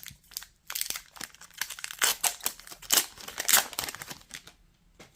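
Foil trading-card pack being torn open and crinkled by hand, an irregular run of crackling and tearing that stops about four and a half seconds in.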